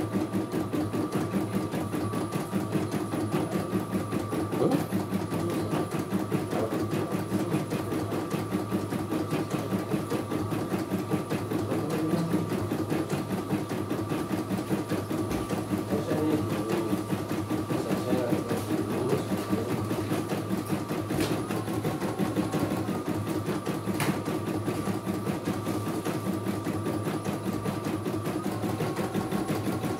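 CNY E900 computerized embroidery machine stitching at its high speed setting: a fast, steady run of needle strokes with a thin steady whine.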